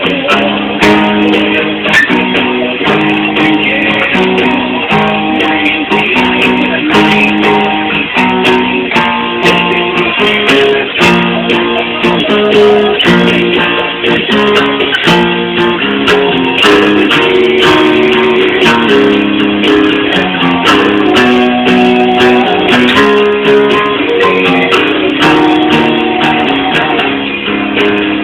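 Guitar playing the rhythm part of a metal song: steady, rhythmic riffing with changing chords.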